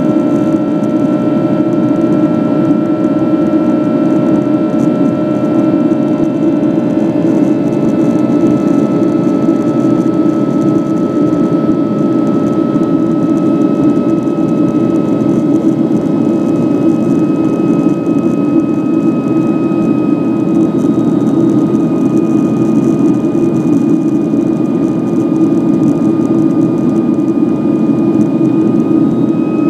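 Steady in-flight cabin noise of a Boeing 757-200 airliner: the deep drone of the jet engines and rushing air, with a few faint steady tones above it that shift slightly in pitch.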